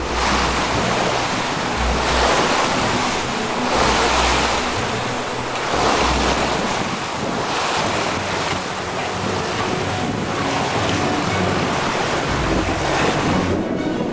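Water rushing and splashing along the hull of a 36-foot sloop sailing through steep chop, surging about every two seconds as the boat meets each wave, with wind buffeting the microphone.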